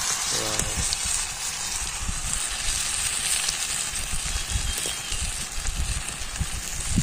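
Steady sizzling of hot oil deep-frying a besan-battered potato lollipop in an iron wok over a wood fire.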